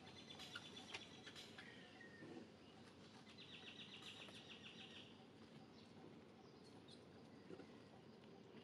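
Faint forest ambience: a low outdoor hiss with a few light clicks in the first second or so, and a rapid trill of high chirps lasting about a second and a half near the middle.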